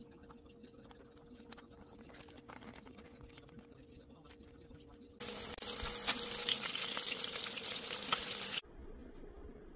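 Rice-paper-wrapped stuffed green peppers frying in hot oil in a pan: a loud sizzle full of crackles starts a little past halfway and cuts off suddenly near the end. Before it there are only faint handling sounds of the rice paper being pressed around the peppers.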